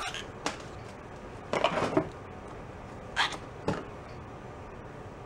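Metal sprocket carrier clicking and knocking against the wheel hub as it is pressed and worked into place by hand, not yet seating. A handful of short clicks, with a brief clatter about one and a half seconds in.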